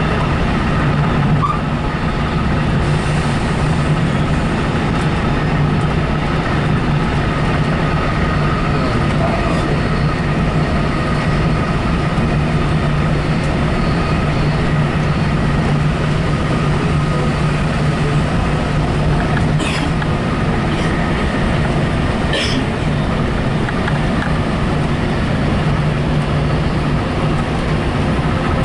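Steady rumble and hum of a passenger train running along the rails, heard from inside the coach, with two short sharp sounds about two-thirds of the way through.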